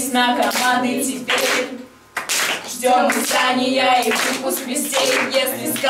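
A group of teenagers singing a rhythmic song together while clapping their hands, with a short break about two seconds in.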